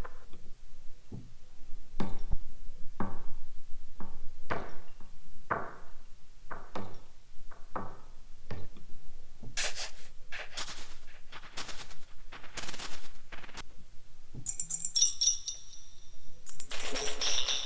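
Synthesized percussion patches from the Ancestry library for the Omnisphere 2 software synthesizer, played one after another: a run of irregular sharp knock-like hits about one to two a second, then a few seconds of louder noisy snare-like hits, then a tambourine-and-shaker jingle in the last few seconds.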